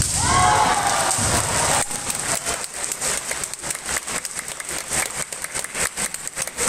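A kendo strike with a sudden hit and a drawn-out kiai shout. About two seconds in, spectators start applauding, the applause that greets a point awarded by the referees' flags.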